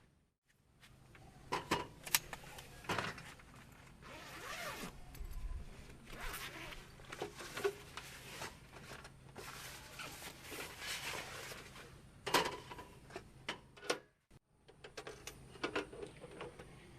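A zipper being pulled in several strokes, each about a second long, mixed with knocks and clicks from gear being handled.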